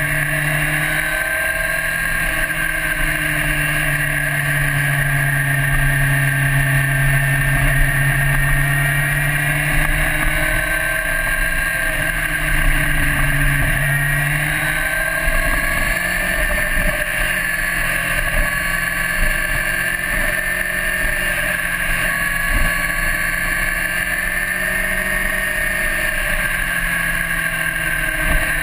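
1998 Honda CBR900RR Fireblade's inline-four engine running under way, its pitch rising and falling gently with the throttle through a run of corners, mixed with wind rushing over the helmet-mounted microphone.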